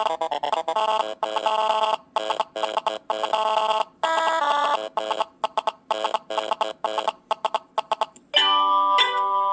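LG Nexus 5 preloaded ringtones playing: an electronic melody of short, rapidly repeated notes with brief gaps. About eight seconds in, it gives way to a different ringtone of clear chiming notes.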